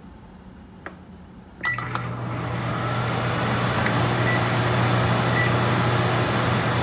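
Microwave oven being started: clicks and a short beep about two seconds in, then the oven runs with a steady hum.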